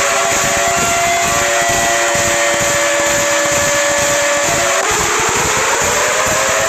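Siren in an emergency alert alarm: several held tones sounding together over a heavy rumbling noise. The tones dip in pitch about five seconds in and wind back up.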